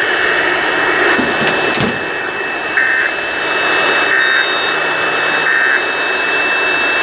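Steady hiss of static on a weakly received radio broadcast, with three short two-tone data bursts about a second and a half apart: the EAS end-of-message code that closes the monthly test.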